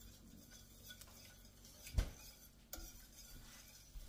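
Wire whisk stirring a thick sour-cream and mustard sauce in a stainless steel skillet, quietly, with one sharp clink of the whisk against the pan about halfway through.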